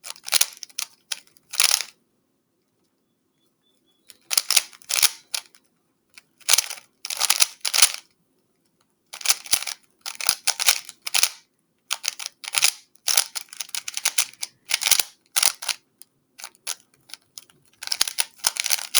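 3x3 speedcube being turned fast during a solve: rapid plastic clicking and rasping of the layers in bursts of one to three seconds, broken by short pauses between steps.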